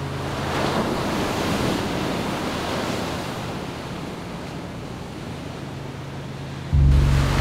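Sea waves breaking and washing up on the shore, a steady rush that swells and eases, with some wind. Near the end it cuts off abruptly and a steady low hum takes over.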